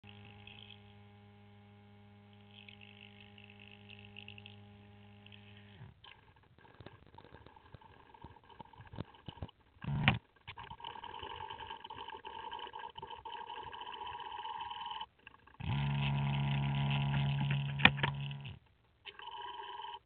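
Steady motor hum from a pan-tilt-zoom camera driving and zooming, in stretches that start and stop abruptly: faint for the first six seconds, louder from about 15 to 18 seconds. There is a short loud knock about ten seconds in.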